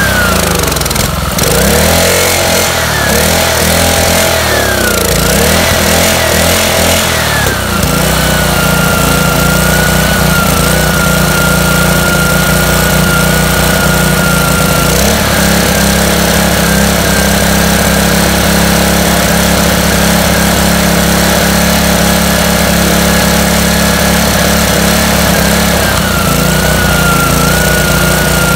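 Honda GCV160 single-cylinder four-stroke engine running while starter fluid is sprayed into its intake, its speed wavering for the first several seconds, then settling into a steady run.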